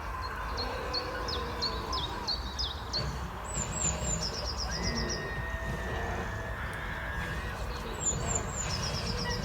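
Songbirds singing: a string of short falling chirps, then the same quick song phrase ending in a fast trill, sung twice a few seconds apart, over a steady low rumble.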